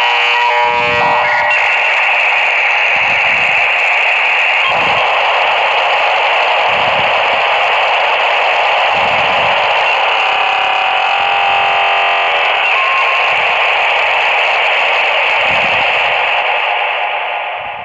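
Dial-up modem handshake over a telephone line: a few short, steady tones in the first second or so give way to a loud, steady hiss of data noise, which fades away near the end.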